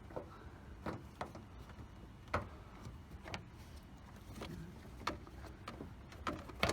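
Irregular light clicks and knocks, about ten of them, from hood-pin and cable hardware being handled and fitted on the car, over a low steady rumble.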